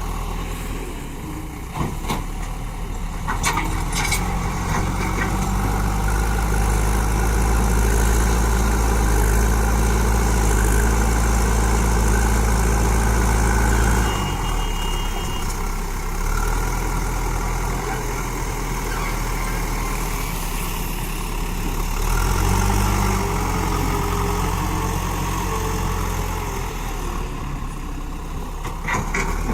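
JCB backhoe loader's diesel engine running, working hard and louder for about ten seconds before easing off sharply, then briefly picking up again later. A few metal clanks near the start.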